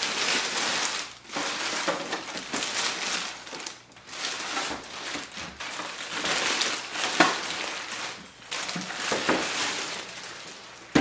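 Thin clear plastic packaging bag crinkling and rustling as it is pulled off and pushed down around a printer, in long stretches of crackle with a couple of short pauses.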